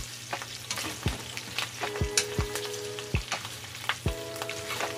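Pieces of pork frying in plenty of hot oil in a pan, with a steady sizzle and frequent sharp pops of spattering fat as the meat is stirred.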